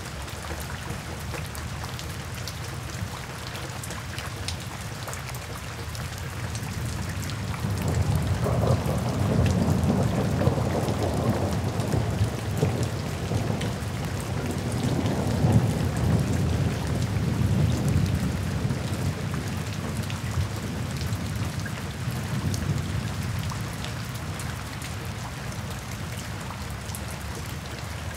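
Steady rain falling on a wet paved surface, with fine drop splashes throughout. About eight seconds in, a low rolling rumble of thunder swells up, peaks twice and fades away by about twenty seconds in.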